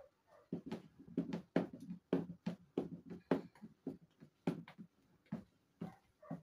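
Plastic paddle stirring thick liquid detergent in a plastic basin: a quick, irregular series of short knocks and squelches, about three strokes a second.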